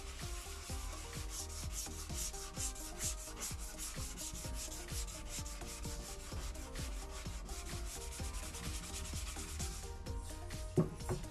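Coarse-grit sandpaper rubbed by hand over a polycarbonate headlight lens in quick back-and-forth strokes, about three a second, stripping the old varnish coat off the clouded plastic. A single knock near the end.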